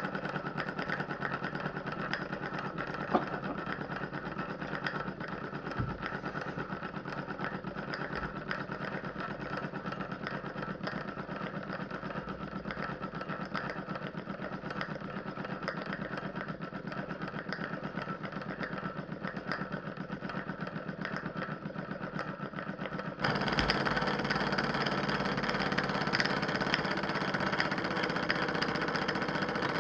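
Model live-steam engine with an oscillating cylinder running steadily, a fast even beat of exhaust and mechanical clatter as it belt-drives a small pulley. The sound jumps suddenly louder about three-quarters of the way through.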